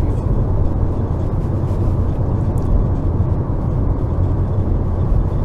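Steady in-cabin drive noise of a 2007 Renault Logan with the 1.6-litre 8-valve K7M petrol engine cruising in fifth gear at about 2500 rpm: a low engine drone with road and tyre rumble.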